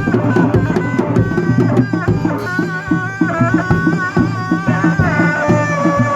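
Live kuda lumping music: hand drums play a fast, dense rhythm, and about two seconds in a high, wavering melody comes in over them.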